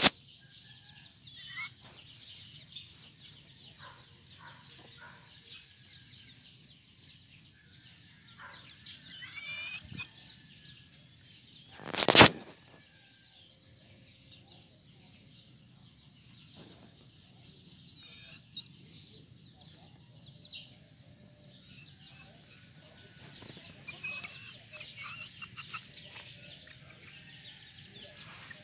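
Chickens close by with soft clucks and scattered high chirps, and one brief, loud noise about twelve seconds in.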